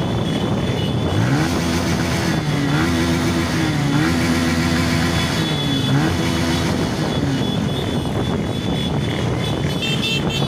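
Motorcycle engines running in a convoy. One engine's pitch rises and falls several times in the first part, revving up and easing off.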